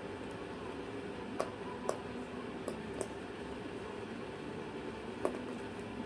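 Cockatoo chewing small wooden blocks, its beak giving about five short, sharp cracks spread unevenly, the loudest near the end, over a steady low room hum.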